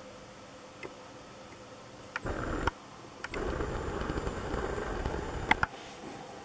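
Camera handling noise: rumbling rubbing with sharp knocks, in a short burst about two seconds in, then a longer stretch of about two seconds that ends in two clicks, as the camera is moved and reframed.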